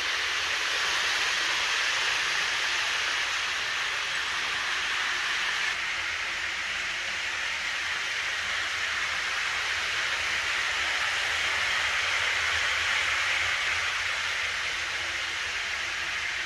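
Model trains running on the layout's track: a steady rushing whir of wheels on rails and small motors, its tone shifting slightly about six seconds in.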